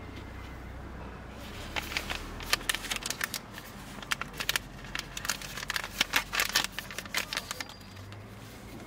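Irregular crinkling and crackling of something being crumpled or handled. It starts about a second and a half in and stops near the end.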